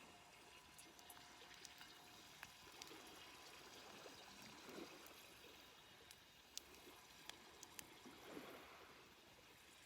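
Faint campfire crackling: scattered sharp pops and snaps over a soft, steady hiss.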